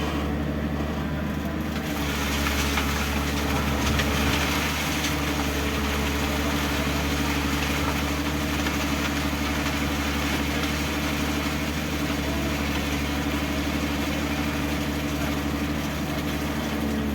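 Backhoe engine running steadily. A rushing noise joins it about two seconds in and continues.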